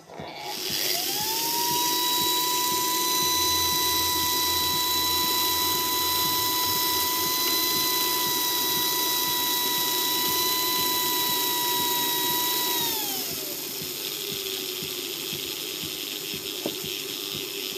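Märklin 3546 H0 locomotive chassis, body removed, running on a rolling-road test stand after a complete overhaul. Its electric motor's whine rises in pitch as it speeds up, holds steady, then falls away about 13 seconds in, leaving a quieter steady running sound of gears and rollers.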